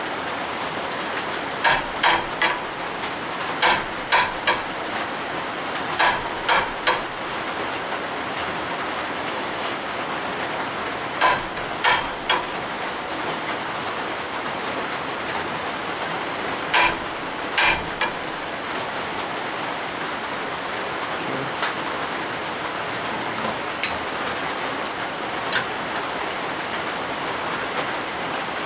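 Steady hiss of rain on the shop roof, with clusters of two or three sharp knocks on the belt grinder's steel work rest and square as it is set square, mostly in the first eighteen seconds.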